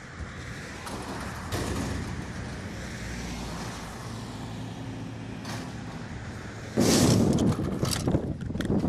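Street traffic with a truck engine running and a pickup truck passing by around the middle. About seven seconds in, the sound jumps abruptly to a much louder rumble with a string of sharp clicks.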